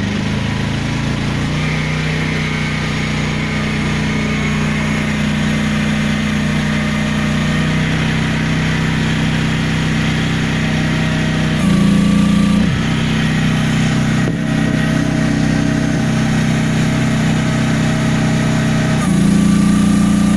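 Mini excavator engine running at high throttle while its hydraulic pump is deadheaded against the relief valve, holding about 2500 PSI. The engine note is steady and swells louder twice, once about twelve seconds in and again near the end.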